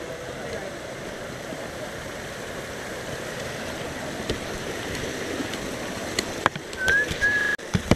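Small mountain creek running and splashing over rocks and logs, a steady rush of water. Near the end come a few sharp clicks and a short high chirp.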